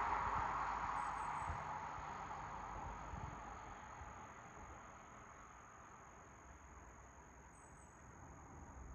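Road noise of a passing vehicle's tyres, fading away over the first few seconds, leaving a quiet background with a steady thin high-pitched tone. Traffic noise begins to rise again near the end.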